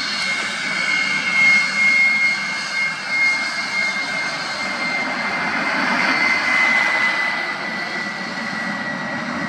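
Lim-2 (Polish-built MiG-15) taxiing, its centrifugal-compressor turbojet giving a steady high whine over a rushing noise; the whine sinks slightly in pitch in the second half.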